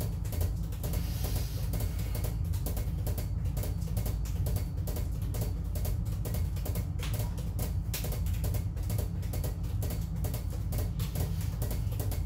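Force-bounce juggling: six balls thrown down hard, bouncing off the floor and slapped into the hands in a quick, even patter of thuds.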